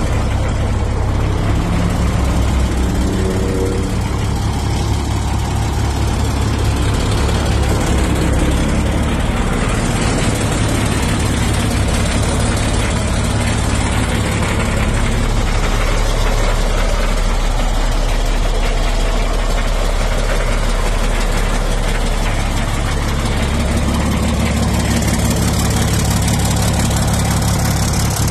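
International truck engine idling steadily.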